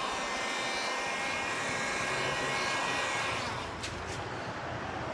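Electric heat gun running steadily, its fan blowing with a thin motor whine as it warms vinyl headlamp film, then stopping about three and a half seconds in. Two short clicks follow.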